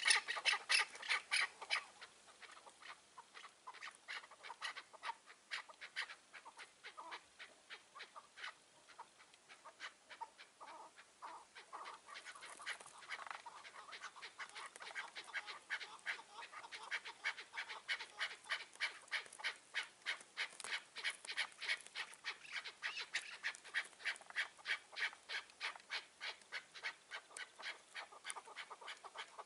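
Chukar partridges calling, a fast run of clucking notes several a second. Loud at first, they drop back for a stretch and build up again about halfway through.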